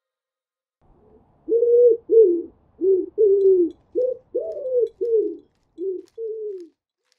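Feral pigeon cooing: a run of about nine short coos, each arching up and falling back in pitch, starting about a second and a half in.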